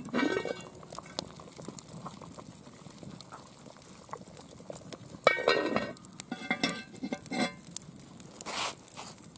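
Heavy cast iron lid of a cauldron lifted off with a metal lid-lifter hook with a ringing clank, then set back down about five seconds in with a louder clank and a few more metallic clinks as it settles. Faint crackling of the wood fire beneath runs throughout.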